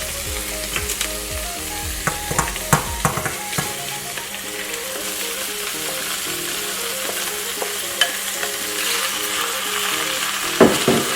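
Saltfish and vegetables frying in hot coconut oil, a steady sizzle. A spoon clicks and scrapes against the pot as the fish is broken up and stirred, most busily a couple of seconds in and again near the end.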